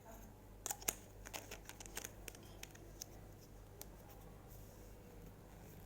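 Slime being squeezed and kneaded by hand, giving a run of small, sharp clicks and pops that are densest in the first couple of seconds and then thin out.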